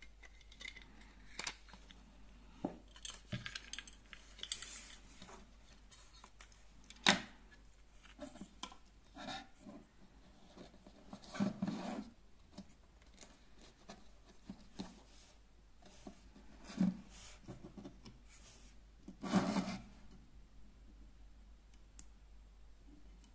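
Handling of small parts on a tabletop: scattered light clicks, taps and rustles as wires, a 9-volt battery and an LED strip are fitted into a 3D-printed plastic channel, with a sharp click about seven seconds in and a few louder scrapes later on.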